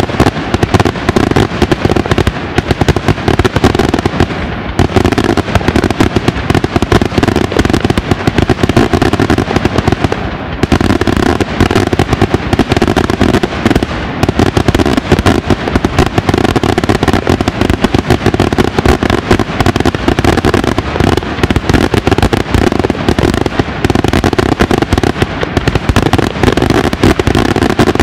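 Daytime fireworks display: a dense, unbroken barrage of bangs and crackling reports, many per second, with a short dip in intensity about ten seconds in.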